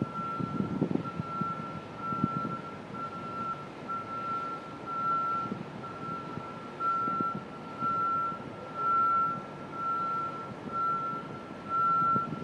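Backup warning alarm on construction equipment beeping steadily: a single high tone about once a second, over a low rumble of machinery and traffic.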